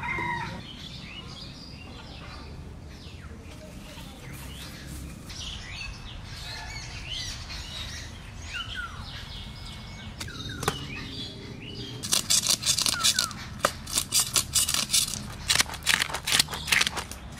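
Small birds chirping and calling. About twelve seconds in, a loud, rapid run of sharp scraping strokes begins: a knife scaling a large mrigal carp.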